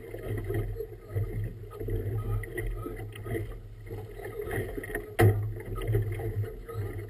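A boat moving through choppy river water, with water sloshing against the hull in uneven surges, and one sharp knock about five seconds in.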